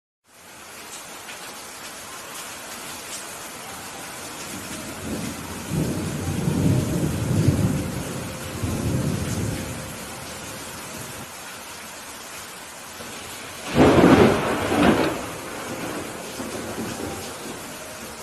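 Steady rain falling during a thunderstorm. A low rolling rumble of thunder swells and fades between about 5 and 10 seconds in, then a loud, sharp thunderclap about 14 seconds in.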